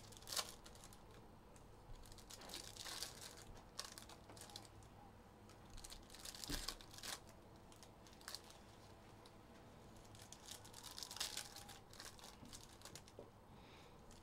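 Card wrappers crinkling and tearing in short, scattered bursts as trading-card boxes and packs are opened.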